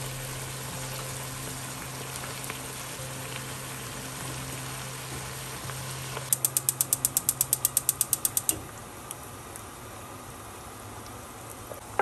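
Gas hob's spark igniter clicking rapidly, about eight clicks a second for some two seconds, about six seconds in. Under it is the low steady hiss of a pan on the stove.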